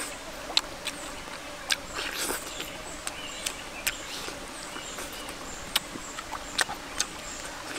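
Mouth sounds of someone eating cooked fish by hand: lip smacks and chewing, heard as sharp clicks every second or so.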